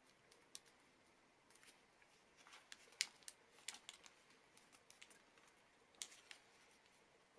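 Origami paper being folded and creased by hand: faint rustling with scattered sharp, crisp crackles, the loudest about three seconds in and again about six seconds in.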